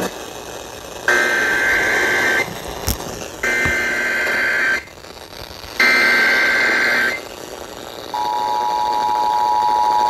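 Emergency Alert System broadcast over FM radio: three SAME header data bursts, each a harsh warbling screech of a bit over a second with about a second of gap between them, encoding a severe thunderstorm warning. About eight seconds in, the steady two-tone EAS attention signal starts and holds.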